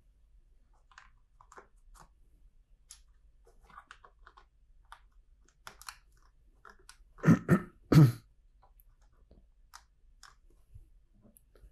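Plastic LEGO bricks being handled and pressed together: scattered small clicks and rattles, with three quick, louder knocks a little past halfway.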